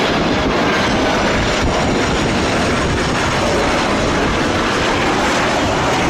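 Jet engines of a twin-engine Airbus A330 airliner coming in to land and touching down, a loud, steady rushing noise.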